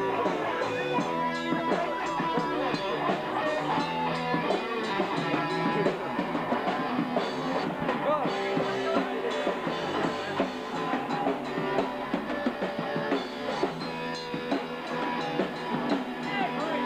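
Rock music with drum kit and guitar, playing steadily.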